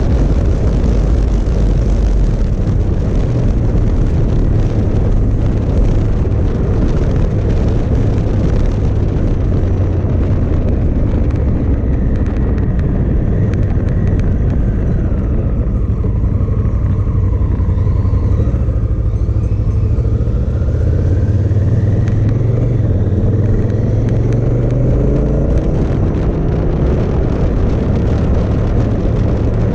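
Motorcycle riding at speed: wind rushing over the camera with the 2018 Honda Africa Twin DCT's engine running underneath. Midway a faint whine dips in pitch and then climbs again.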